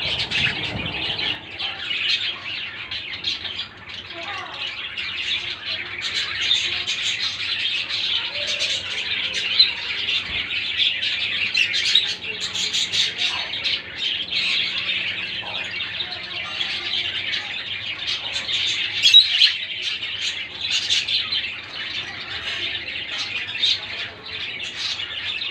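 Many budgerigars chattering at once: a dense, continuous stream of chirps and warbles, with a few louder calls standing out.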